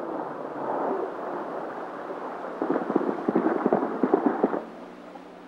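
The noise of a felled tree crashing down a brushy hillside fades away. About two and a half seconds in, a galloping horse's hoofbeats clatter for about two seconds and then cut off.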